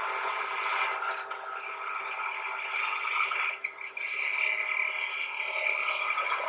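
Skew chisel cutting a spinning wooden spindle on a wood lathe: a steady scraping, shaving sound as the edge peels off shavings, with a brief break a little past halfway.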